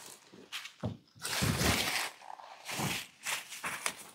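Corn stalks and leaves rustling in irregular bursts as ears of sweet corn are picked from the stalks.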